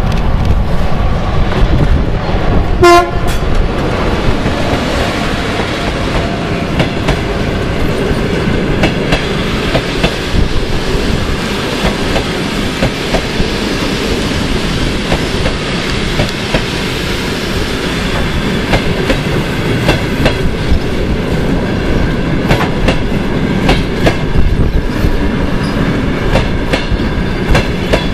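A ChS4T electric locomotive and its passenger coaches rolling past at close range. A short horn blast comes about three seconds in, then the wheels click steadily over the rail joints as the coaches go by.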